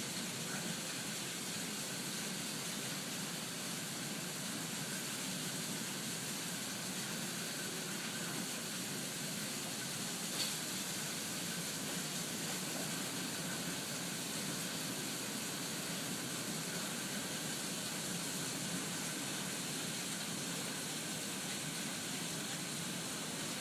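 Steady hiss of rainwater running and pouring, with one short tap about ten seconds in.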